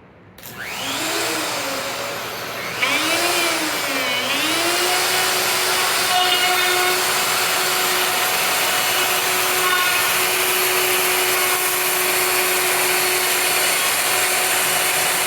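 Festool OF 1400 EQ plunge router starting up about half a second in. Its motor pitch dips and recovers twice over the next few seconds as it takes load, then it runs steadily with a loud rushing hiss.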